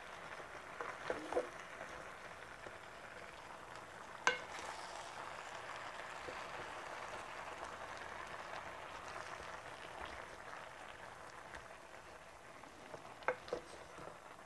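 Zucchini and other vegetables sizzling faintly in an electric skillet while a wooden spoon stirs them, with a few sharp clicks of the spoon against the pan, one about four seconds in and two near the end.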